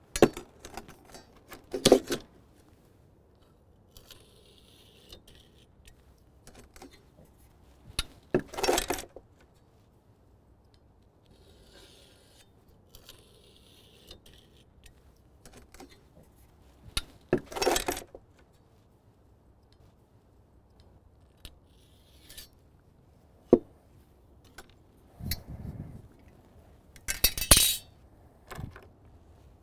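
Metal hand tools being handled and set down on a cart: scattered clinks and clatters every few seconds, the loudest near the end.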